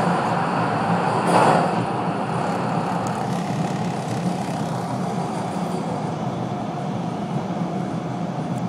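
Toronto subway train running on its rails, heard from inside the car: a steady rumble with a motor hum, a brief louder surge about a second and a half in, then slightly quieter as it runs into the station.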